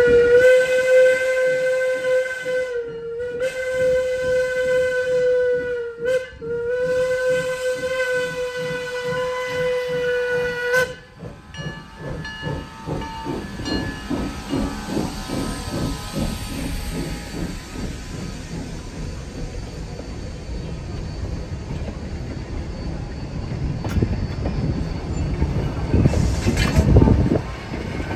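Steam locomotive whistle blown in three blasts, the last the longest, followed by the locomotive's exhaust chuffing in an even rhythm with steam hiss as it works, growing louder near the end.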